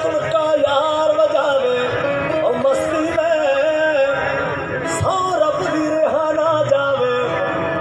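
Live Punjabi folk song: a male singer holding long, wavering notes into the microphone over the band's accompaniment, amplified through a PA.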